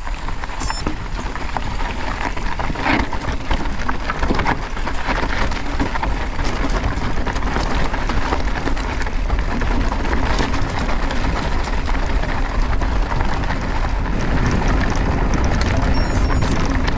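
Mountain bike ridden along a rough dirt trail: a steady rush of wind on the action camera's microphone, with tyre noise and scattered knocks and rattles of the bike over the ground.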